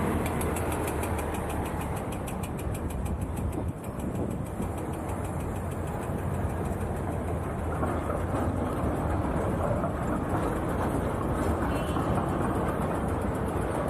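Steady city traffic noise, vehicle engines running with a low hum. A fast, even ticking rides over it and fades out about halfway through.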